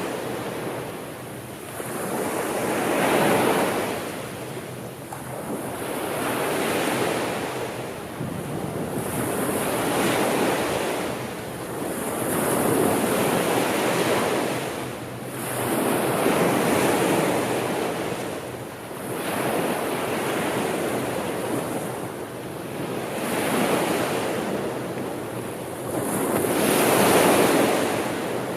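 Sea surf: waves washing in and drawing back, the hiss swelling and fading about every three to four seconds.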